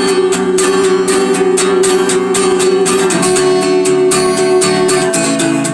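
Acoustic guitar strummed in a quick, steady rhythm, chords ringing between the strokes.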